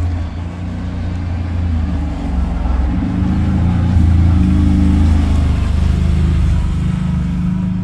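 ATV (four-wheeler) engine running nearby, getting louder to a peak about halfway through and then easing off a little.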